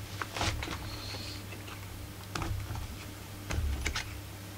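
Scattered light clicks and taps as the Walbro carburettor and its plastic parts are worked loose from a Husqvarna 44 chainsaw by gloved hands, over a steady low hum.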